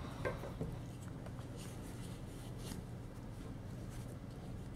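Faint rustling and rubbing of cotton sheet-yarn strips being worked through stitches with a large crochet hook, over a low steady hum.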